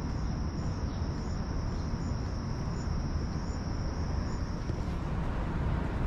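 Crickets trilling, a steady high note with faint regular chirps above it, which stops about five seconds in. Under it runs a steady low rumble of city background noise.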